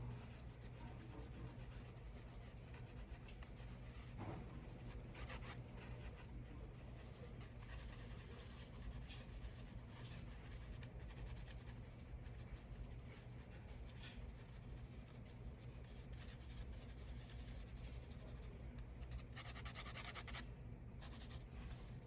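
Graphite pencil scratching faintly across sketchbook paper in short sketching strokes, over a low steady hum.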